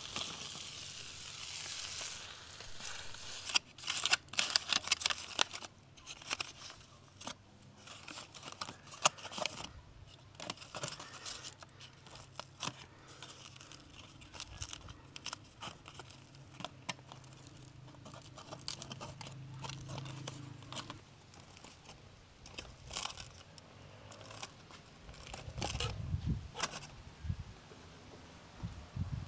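Aluminium foil crinkling and rustling in irregular bursts, with many small clicks and scrapes, as foil parcels of fish are lifted from hot embers with metal tongs and unwrapped by hand.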